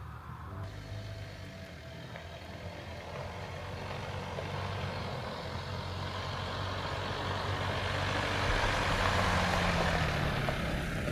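A motor vehicle's engine with a steady low hum. A swell of road or engine noise builds over several seconds, is loudest near the end, then eases off.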